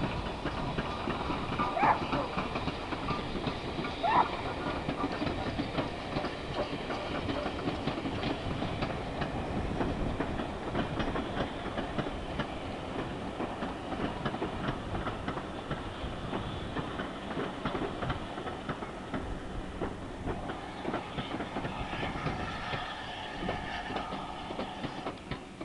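Steam-hauled passenger train passing: GWR Manor-class locomotive 7827 and its coaches, wheels rumbling with a steady rapid clatter over the rail joints. Two short rising squeals come about two seconds apart near the start.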